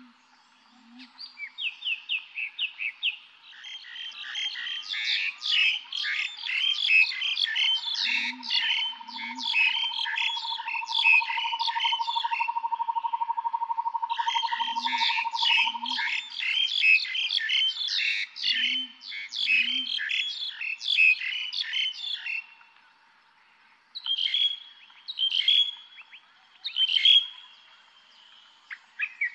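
Several birds chirping and singing in a busy chorus, with a low two-note call repeated four times and a steady trill in the middle; the chorus thins to scattered chirps near the end.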